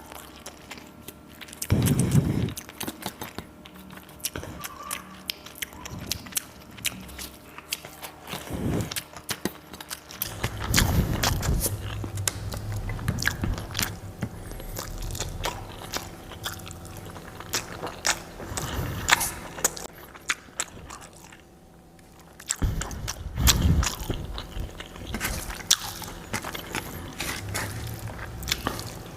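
Close-miked eating: a person chewing and crunching food, with many sharp, crisp crackles throughout and a few heavier, fuller bursts near the start, around the middle and near the end.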